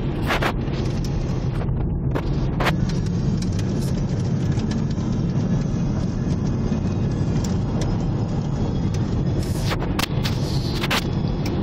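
Steady road and engine noise of a car driving along a highway, heard from inside the cabin, with a few brief sharp clicks now and then.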